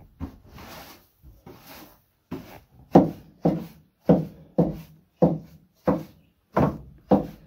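Broom sweeping straw and goat droppings across a stall floor: soft rustling at first, then brisk strokes about two a second from a few seconds in.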